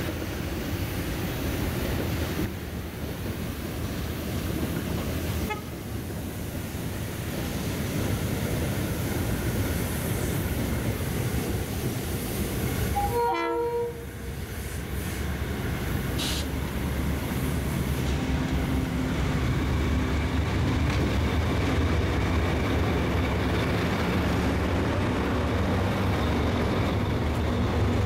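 Freight train hauled by several diesel locomotives approaching and passing close by: the engines run under load and grow louder as the lead units come alongside, with a steady low engine drone and wheel noise on the rails. A brief horn note sounds about halfway through.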